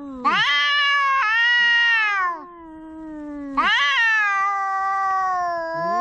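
Cats yowling in an angry standoff: two long, drawn-out, wavering yowls, the first starting just after the start and lasting about two seconds, the second starting about three and a half seconds in.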